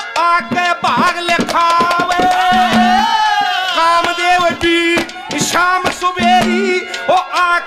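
A male singer singing a Haryanvi ragni into a microphone, with long held, ornamented notes, over quick dholak drum strokes.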